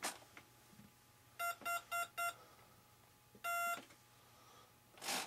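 Electronics of an RC plane with a brushless motor beeping on power-up: four short beeps and then one longer beep, the pattern typical of a speed controller arming. Just before the end, a rasping rub begins.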